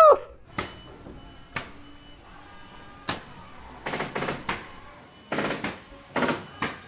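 A string of short, sharp clicks and knocks at irregular spacing, some single and some in quick clusters of three or four.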